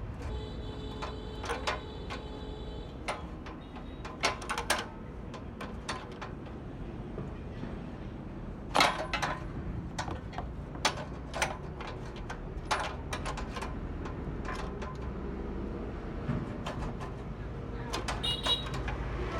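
Irregular clicks and knocks of hand tools and metal parts being handled on a small portable generator while its spark plug is taken out for a spark check, with the sharpest knock about nine seconds in.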